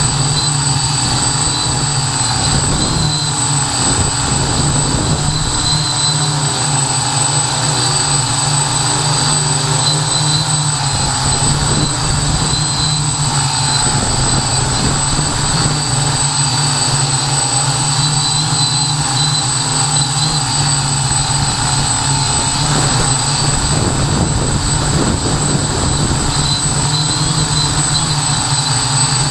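Hexacopter's electric motors and propellers running steadily at close range, a constant whirring with a thin high whine, with wind buffeting the microphone as a low, uneven rumble.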